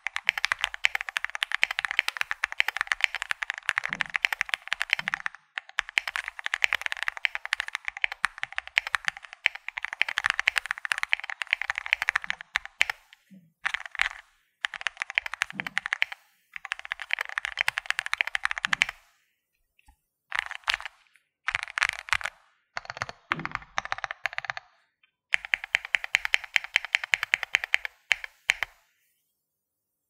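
Typing on a Finalkey V81 Plus mechanical keyboard with Gateron Milky Yellow Pro linear switches lubed with 205 grease: fast runs of keystroke clacks a few seconds long, with short pauses between, stopping near the end.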